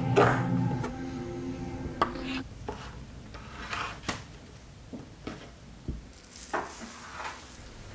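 Knife cutting the crusts off a slice of bread on a wooden board: a series of separate short scrapes and knocks of the blade through the crust and onto the wood. Background music plays under the first couple of seconds, then stops.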